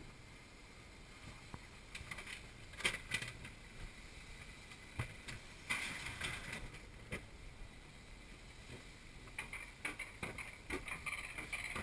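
Rail-mounted bobsled coaster sled running along its steel track, with irregular clicks and rattles that come thicker and quicker near the end.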